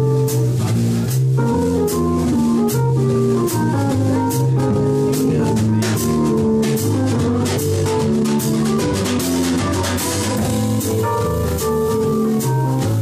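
Live band playing: a drum kit with cymbals keeps a steady beat under sustained, organ-like keyboard chords.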